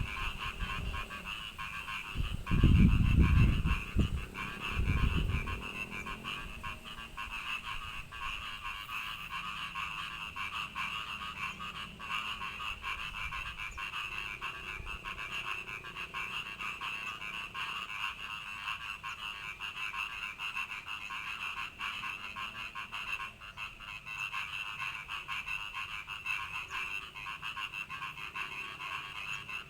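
Frogs calling steadily in a dense, continuous high-pitched chorus. A few low thumps come in the first few seconds.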